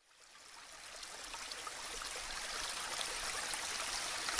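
Water running and trickling steadily into an aquaponics tank, with small drips and splashes, fading in over the first couple of seconds.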